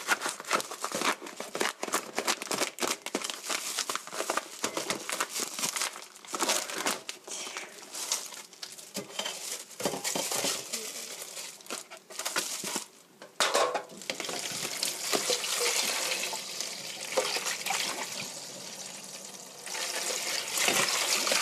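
Plastic film on a packaged chicken tray crinkling and tearing, with gloved hands rustling as the pack is cut open and the chicken lifted out. Partway through, a kitchen tap runs into a steel sink as a steady hiss, getting louder near the end.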